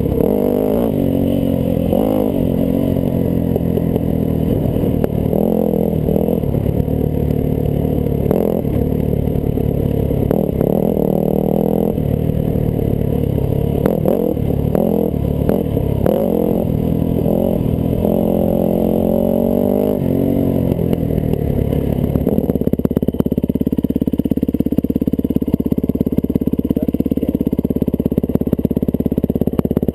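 1998 Yamaha YZ400F's four-stroke single-cylinder engine revving up and down with the throttle, then settling to a steady idle about two-thirds of the way through.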